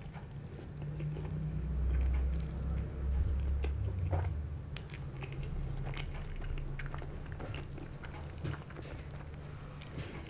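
A person chewing a bite of pizza close to the microphone, with scattered soft mouth clicks; it is loudest in the first few seconds.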